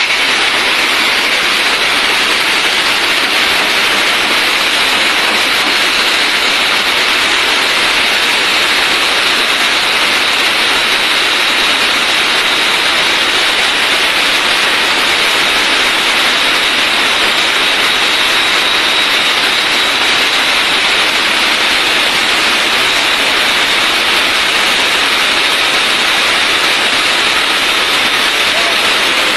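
Handheld angle grinder grinding a steel shaft as it turns in a lathe: a loud, continuous high-pitched grinding hiss with a faint steady whine, unbroken throughout.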